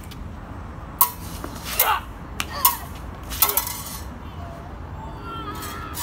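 Fencing blades clashing in a stage-fencing exchange: about five sharp metallic clinks in quick succession, a few ringing briefly.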